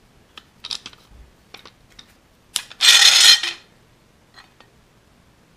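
Steel bar clamp being handled: a few light metal clicks and clinks, then its sliding jaw scraped along the bar for about a second, the loudest sound.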